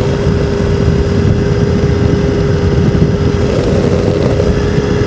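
Two-stroke ultralight aircraft engine running steadily in flight, with a steady droning tone over a dense low rumble of engine and wind noise.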